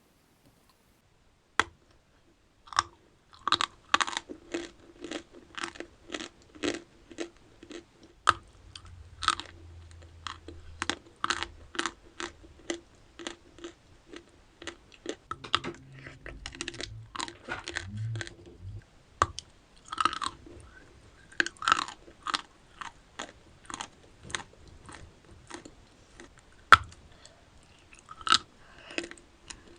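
A person biting and chewing crunchy chalk, with a long run of sharp crunches, about one or two a second.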